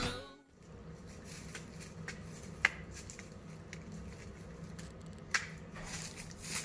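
Music cuts off right at the start, then a quiet steady background hum with a few isolated sharp clicks, the two loudest about two and a half and five seconds in.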